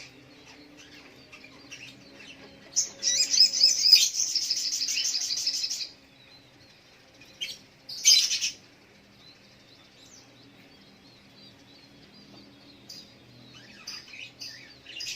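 Crimson sunbird (sogok ontong) singing. It gives thin high chirps, then a loud, rapid, high trill lasting about three seconds. A short sharp burst of song comes about halfway, and more scattered chirps follow near the end.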